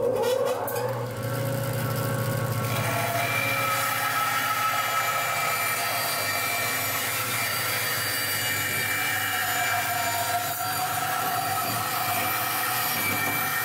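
Band saw running and ripping a slab of dry quartersawn oak, a steady mechanical hum with blade noise that grows fuller about three seconds in as the cut gets going.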